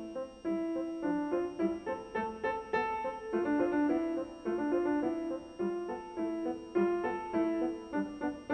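Piano music: a melody of struck notes, a few a second, each ringing and fading.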